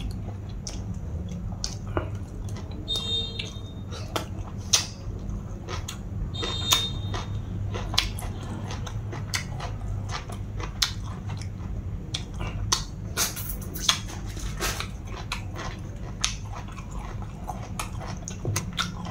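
Close-up eating sounds: irregular wet mouth clicks and chewing while fingers pick through pounded long-bean salad on a metal tray, over a steady low hum. Two brief high squeaks come in the first seven seconds or so.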